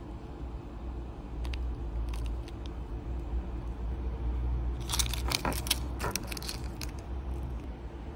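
Hands handling small hard parts: a few faint clicks, then a quick cluster of light clicks and rattles about five to six and a half seconds in, over a steady low hum.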